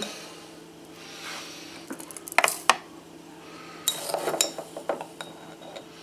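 Metal teaspoon scooping instant coffee granules from a glass jar, with sharp clinks in two quick clusters about two and four seconds in.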